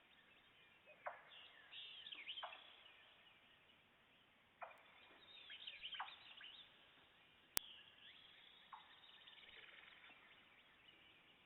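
Faint birdsong with short, sharp knocks repeating irregularly every second or two, from an unidentified source. One brief, sharper click about two-thirds of the way through is the loudest sound.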